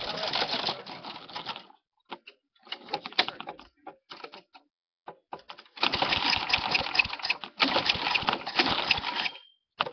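Small engine of a Craftsman push lawn mower running with a rapid rattling beat, heard in stretches broken by short silences, the longest in the second half.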